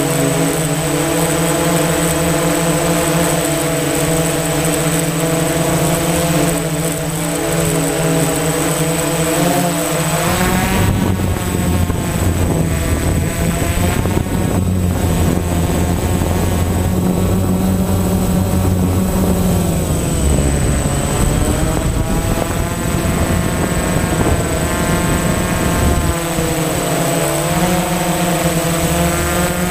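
DJI Phantom FC40 quadcopter's motors and propellers whirring, heard from the camera on the drone itself: a hum of several steady tones over a constant thin high whine. About ten seconds in, as the drone begins to climb, the pitch shifts and starts to waver up and down.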